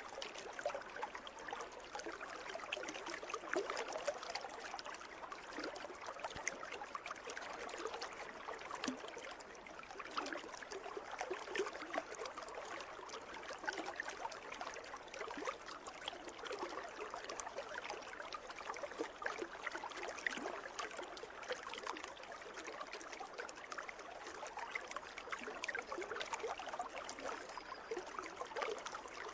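Pool water trickling and splashing steadily, with many small irregular droplet splashes over a continuous wash.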